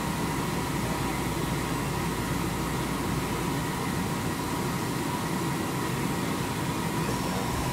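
Metal lathe running steadily with coolant flowing over the tooling as a reamer cuts a rifle barrel's chamber, an even mechanical hum with a faint steady whine.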